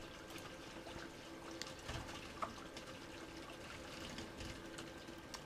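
Faint steady whir and hum of a gaming PC's cooling fans, with a few faint ticks.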